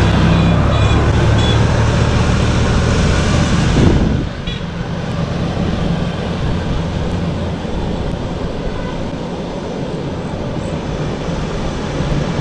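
Street traffic: a motor vehicle's engine running close by, its hum cutting off abruptly about four seconds in, followed by quieter steady road noise.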